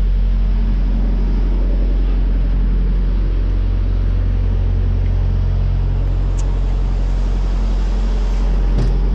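Semi-truck diesel engine idling with a steady low hum that swells for a few seconds in the middle; a light click about six seconds in.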